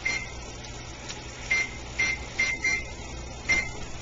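Short high beeps from an electronic kitchen timer's buttons being pressed as it is set for 15 minutes: six single beeps at uneven intervals.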